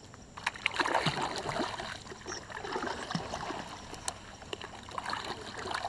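Water trickling and splashing around a kayak moving through a bed of lily pads, with many irregular small clicks and knocks.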